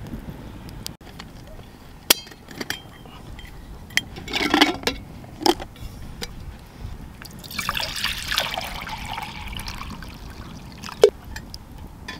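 Liquid poured into a stainless steel camping pot, in a short pour about four seconds in and a longer one about eight seconds in, among light metal clinks. A sharp metal clink comes near the end.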